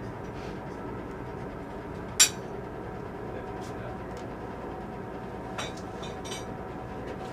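Steel clinking on steel: one sharp, ringing clink about two seconds in and a couple of lighter clinks later, over a steady background hum.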